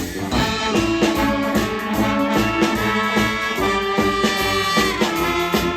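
Pep band of brass and saxophones playing a tune over a drumbeat, the horns holding long notes.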